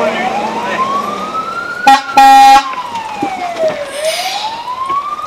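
Fire engine siren wailing, rising and falling slowly about every four seconds, heard from inside the truck's cab while it drives. About two seconds in, a short horn blast and then a longer one cut across it, the loudest sound.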